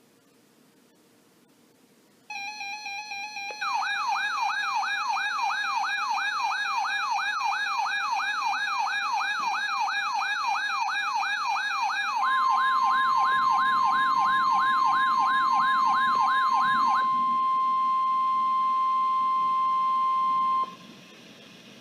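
Alert audio: after about two seconds of near silence a buzzing tone starts, then an electronic siren wails up and down about three times a second. About halfway through, the steady 1050 Hz warning alarm tone of NOAA Weather Radio joins in, runs on after the siren stops, and cuts off about a second before the end, leaving faint static.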